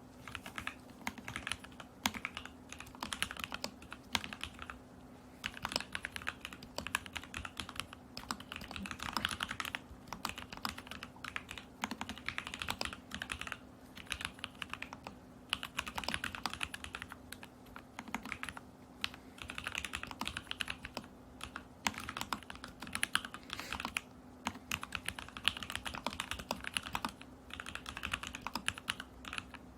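Continuous typing on an Alice-layout mechanical keyboard in a stacked acrylic case with lubed and filmed Lavender switches, a tape mod and Polycaps Whale keycaps: rapid keystroke clicks in runs of several seconds, broken by short pauses.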